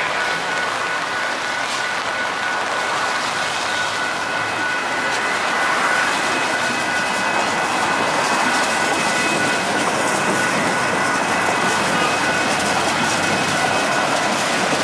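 SITEUR light rail trains passing close by: a steady rumbling rush of wheels on rail, with a thin high whine held over it.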